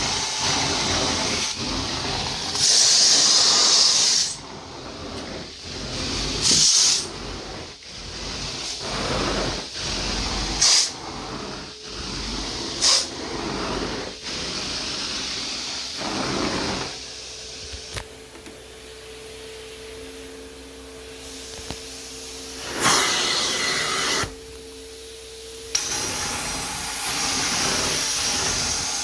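Carpet-cleaning extraction machine running with a steady suction hiss, broken by several short, louder hissing surges and a quieter stretch about two-thirds of the way through.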